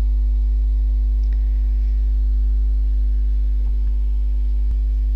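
Steady, loud low electrical hum with a fainter higher tone over it, unchanging throughout, and a few faint clicks.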